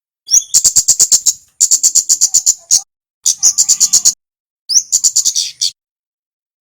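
Male kemade songbird singing: four short bursts of rapid, sharp ticking notes, about seven a second, each burst opening with a quick rising slur and broken by brief pauses.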